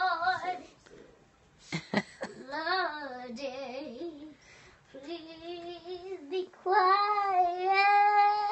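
A young girl singing in a high voice: short phrases, then a long held note near the end. A couple of sharp knocks sound about two seconds in.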